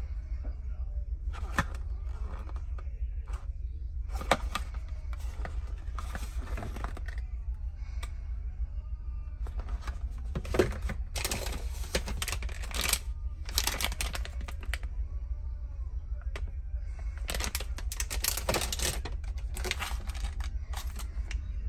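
Cat-supply packaging being handled: a cardboard box and plastic pouches rustling and crinkling in irregular bursts, over a steady low hum.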